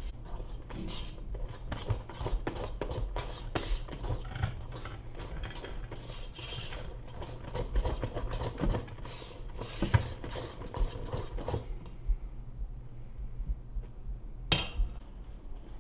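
Wire whisk stirring thick batter in a stainless steel mixing bowl: rapid scraping and clinking strokes against the metal, which stop about twelve seconds in. One sharper clink near the end.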